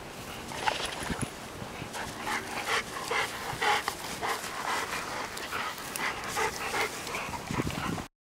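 Bernese mountain dogs panting and whimpering in a run of short, quick bursts. The sound stops abruptly just before the end.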